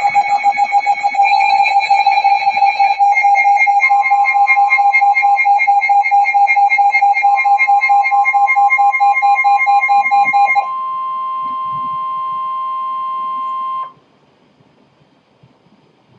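Emergency weather alert tones. A rapid electronic alarm beeping runs first, and a steady single-pitch alert tone joins about four seconds in, the NOAA Weather Radio warning alarm that announces a warning broadcast. The beeping stops at about eleven seconds, the steady tone carries on with a lower second tone, and both cut off suddenly at about fourteen seconds.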